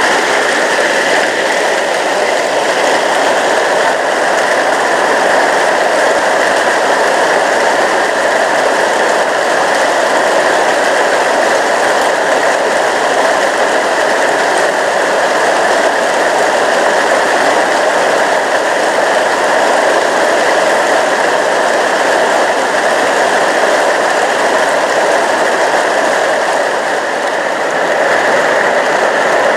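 Steady downpour of rain falling on garden plants and paving, an even hiss that holds without a break.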